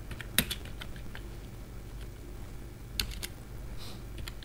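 Computer keyboard typing: slow, irregular keystrokes, with two louder strokes, one about half a second in and one about three seconds in.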